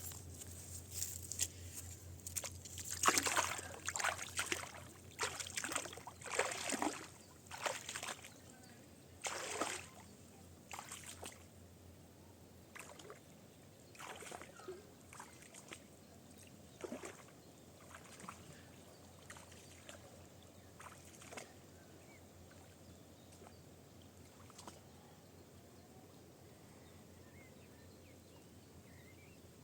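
Water splashing and sloshing in irregular strokes, busy for the first ten seconds or so, then thinning out and stopping.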